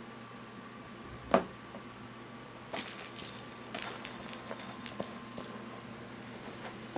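A kitten playing with cat toys on carpet: one sharp thump about a second and a half in, then a couple of seconds of quick jingling and rattling from a toy as it is batted about.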